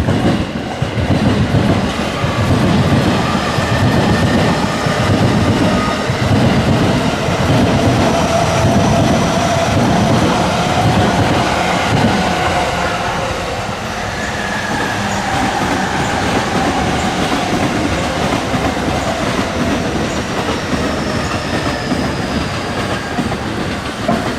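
Electric train passing over a level crossing, its wheels clattering over the rail joints. The rumble is heaviest in the first half and eases off after about 13 seconds.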